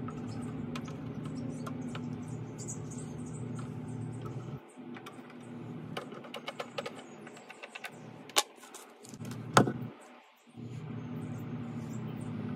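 Light taps and clicks of a metal piano hinge and a pencil being handled on a sheet of plywood, with two sharper knocks about two-thirds of the way through. A steady low hum runs underneath, drops out in the middle and returns near the end.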